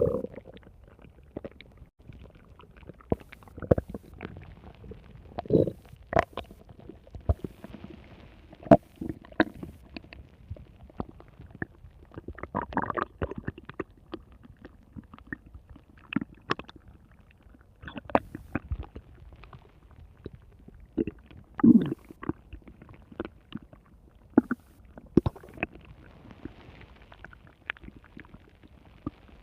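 Stomach growling: irregular gurgles, squelches and rumbles that come and go, with louder, longer gurgles about 5, 13 and 22 seconds in.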